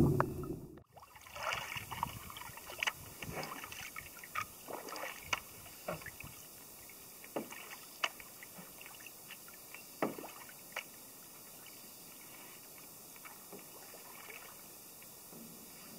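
Canoe paddling on a calm pond: small irregular splashes and light knocks of water, several a second at first and thinning out after about eleven seconds. It opens with a brief, louder gurgle of water that cuts off abruptly.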